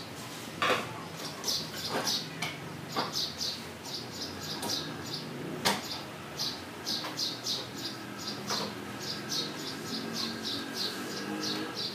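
Birds chirping over and over in short, high bursts, with a few sharp knocks from a file and a small wooden part being set down and clamped on a wooden workbench; the loudest knock comes near the middle.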